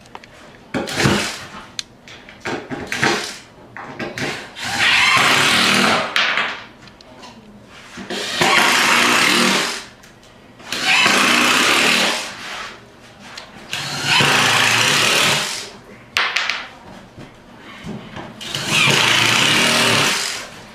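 Cordless screw gun driving screws through plywood subflooring into the framing below, one screw after another every 6 inches along the edge: a string of runs of one to two seconds each with short pauses between, five long ones and a couple of shorter ones.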